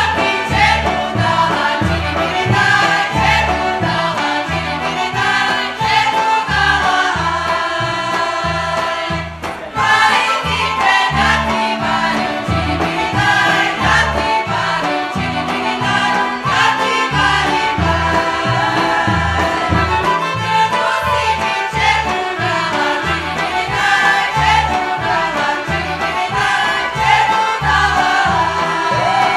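Women's choir singing a Serbian folk song from around Niš, several voices together, over instrumental accompaniment with a steady low beat. The music drops away briefly about nine seconds in, then carries on.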